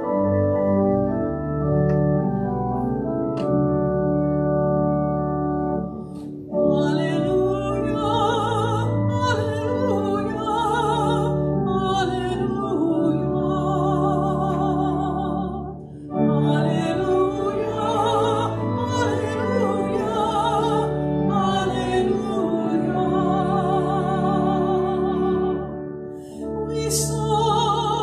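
Organ playing held chords alone for about six seconds, then a solo cantor singing with vibrato over the organ, in two phrases with a brief break near the middle: the sung Gospel acclamation before the Gospel reading at Mass.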